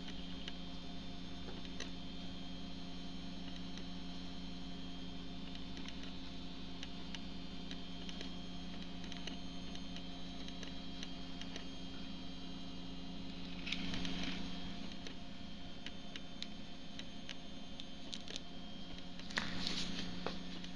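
Faint taps of high-heeled platform sandals stepping on a soft cloth-covered floor over a steady electrical hum. Two brief rustles, one about two-thirds through and one near the end as a sandal is handled.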